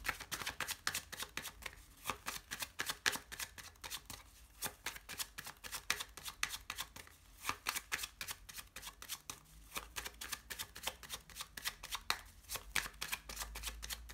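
A worn deck of cartomancy cards shuffled by hand, packets slid and dropped between the hands: a quick, uneven run of light card snaps, several a second.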